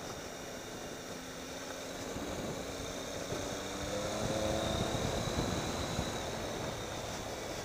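Triumph Tiger 800 XCx motorcycle's three-cylinder engine running while riding, with wind noise. The engine pitch rises about three to four seconds in as the bike speeds up, and this is the loudest part.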